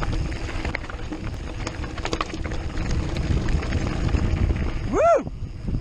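Wind buffeting a bike-mounted action camera, with tyre rumble and gravel and frame rattle as a mountain bike rolls down a rocky track. About five seconds in, a short high call rises and falls in pitch.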